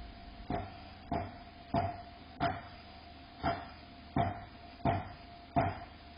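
Construction hammering: a steady run of sharp hammer blows, about one and a half a second, starting about half a second in.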